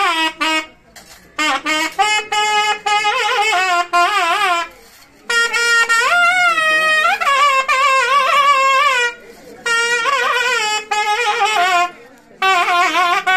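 A reed wind instrument playing an ornamented melody, with sliding pitch bends and vibrato, in phrases separated by short pauses.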